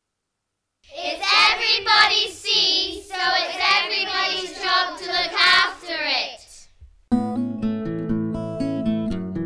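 Children singing without accompaniment, starting about a second in and stopping about six seconds in. Strummed acoustic guitar music starts a moment later.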